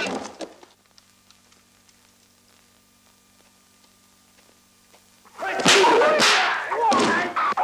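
Kung-fu fight-scene soundtrack. The trailer music dies away at the start, leaving a nearly silent stretch with a faint film hum. About five seconds in, a fight erupts: fighters shouting over a rapid run of sharp punch and kick sound effects.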